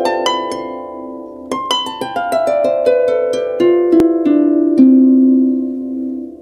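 Intro music of plucked-string notes. A rising run rings out, then about a second and a half in, a descending run of plucked notes follows, each note ringing on and fading away.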